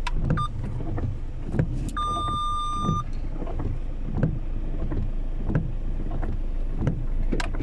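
A car's cabin noise while driving in heavy rain: a steady low rumble with a hiss of rain and water, and frequent small knocks. About two seconds in, a steady electronic beep sounds for about a second.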